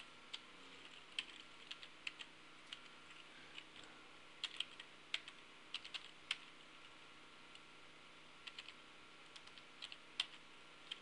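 Faint, irregular keystrokes on a computer keyboard as numbers are typed in, with a pause of about two seconds a little past the middle.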